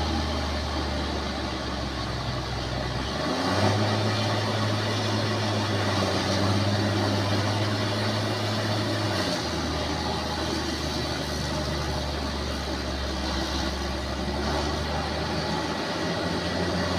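Bulldozer diesel engine running steadily, its pitch stepping up about three and a half seconds in, dropping back a little after nine seconds, and rising again near the end.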